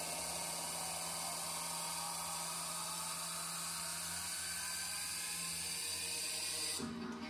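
Steady whirring hiss over a low hum. The hiss cuts off abruptly near the end as strummed guitar music comes in.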